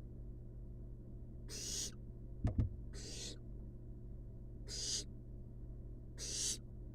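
Barn owl nestlings giving hissing, rasping begging calls: four hisses of about half a second each, roughly a second and a half apart. There are two quick sharp knocks about two and a half seconds in, over a steady low hum.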